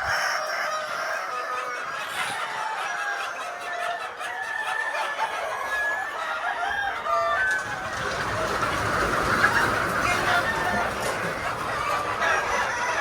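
A flock of laying hens clucking and calling, many birds at once with their calls overlapping.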